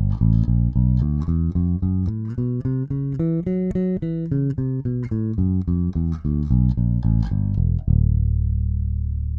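Five-string electric bass played with no compression: a fast run of plucked notes, then, about eight seconds in, one long held low note.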